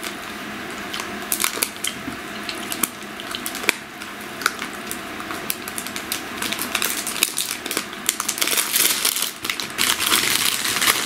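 Crinkling and crunching close to the microphone: a dense run of small clicks and rustles that grows louder and busier over the last few seconds.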